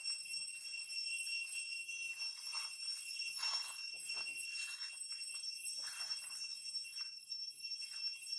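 Infant macaque suckling at its mother's nipple, making short smacking sounds several times, over a steady high-pitched ringing drone.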